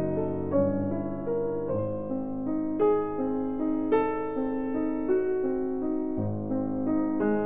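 Background piano music: a slow melody of struck notes and chords, a new note about every half second to one second.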